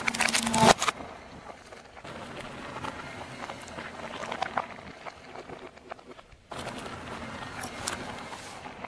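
Hard plastic cracking and snapping under a slowly rolling car tyre for about the first second. After that comes the gritty crunch of the tyre on gravelly asphalt, with scattered small cracks, and a second patch of crackling near the end.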